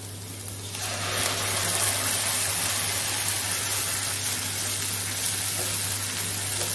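Wet ground onion-tomato paste hitting hot oil and sautéed onions in a non-stick kadai and sizzling, a steady hiss that starts about a second in as the paste is stirred with a wooden spatula.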